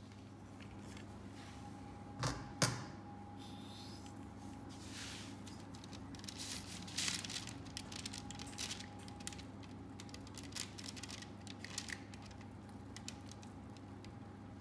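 Plastic piping press clicking as its squeeze handle is worked to push choux dough onto baking parchment, with two sharper knocks a little over two seconds in and many small clicks and rustles after.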